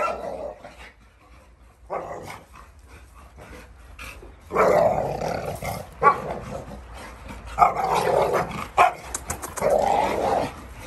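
American bully dogs growling and barking as they wrestle, in several rough bursts, the longest in the second half.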